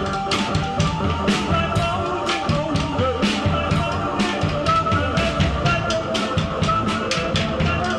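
Live noise-rock played on a Casio keyboard and a drum kit: busy drumming with sharp hits several times a second under sustained, wavering keyboard tones.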